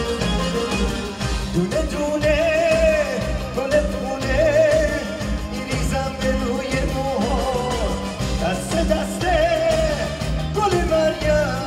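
Male singer performing a Persian pop song live with a band, his voice wavering over violins and a steady bass and drum beat.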